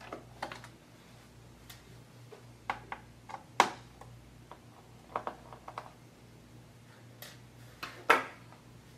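Scattered light clicks and taps of a screwdriver and fingers on the plastic access panel under a notebook computer, as the panel's screws are undone and the cover is lifted off. The sharpest click comes about three and a half seconds in, with a pair of others about eight seconds in.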